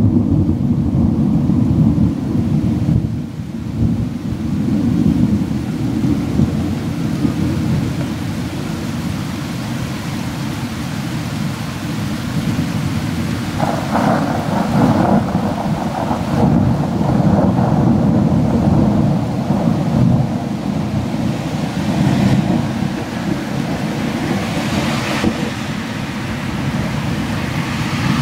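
Thunderstorm: steady rain with thunder rumbling low and continuously, swelling at times.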